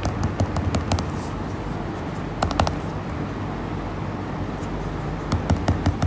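Stylus tapping on a tablet screen: light, sharp clicks in small clusters as dots are marked, over a steady low hum.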